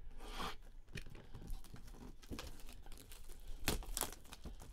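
Plastic shrink wrap crinkling and tearing as it is pulled off a cardboard collectible box, a series of irregular crackles with the loudest near the end.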